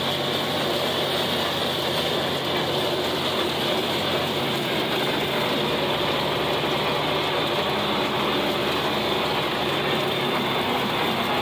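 John Deere 4020 tractor's six-cylinder engine running steadily under load from the operator's seat, together with the PTO-driven 1408 rotary cutter mowing.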